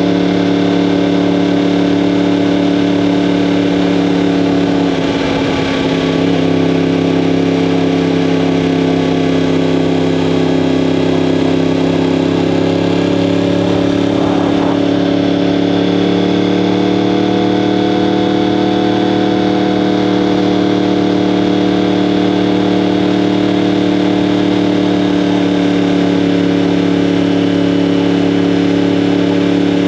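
2015 Yamaha R1M's crossplane-crank inline-four (CP4) engine running steadily through an Akrapovic exhaust. Its pitch rises gently and eases back about halfway through.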